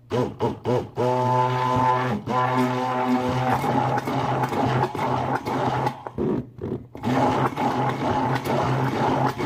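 KitchenAid immersion blender running on medium in a tall jar of homemade mayonnaise, its blade churning the thickening egg-and-oil emulsion as it is rocked and lifted up and down. A steady motor hum runs under a pitched whine for the first few seconds, which gives way to a rougher churning, with a few brief dips in level.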